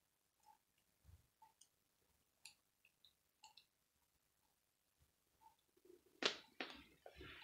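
Small plastic Lego pieces being handled and pressed together: scattered faint clicks, then a louder cluster of sharp clicks near the end.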